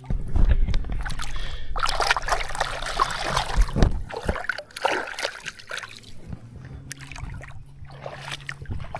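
Hooked fish splashing and thrashing in the water as it is brought in on a spinning rod, loudest a couple of seconds in, with bumping and rustling from handling the gear close to the microphone.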